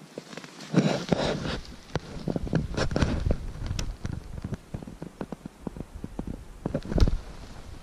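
Someone moving through dense brush on foot: twigs snapping and crackling, with bursts of branches and clothing rustling.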